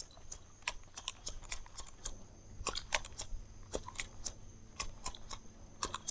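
Irregular sharp clicking, several clicks a second, over a faint low hum.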